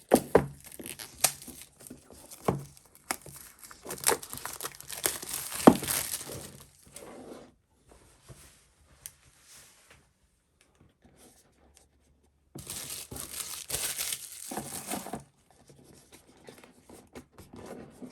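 Packaging on a small product box being torn and crinkled open by hand, in two stretches of rustling with a quiet pause between, and a few sharp clicks of handling in the first stretch.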